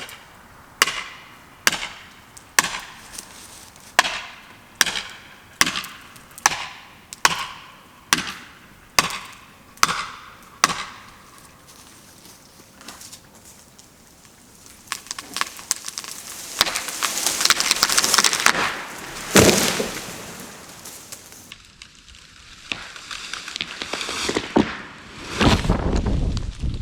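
Wood struck about a dozen times at an even pace, roughly once a second. Then a tree trunk gives way, with cracking and splintering of wood building up, one loud sharp crack about two-thirds of the way through, and a heavy low thud near the end as the tree comes down.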